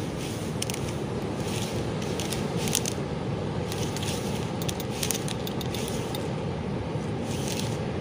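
Steady rushing of heavy surf, with close crackling and rustling of bushes and fishing line being handled.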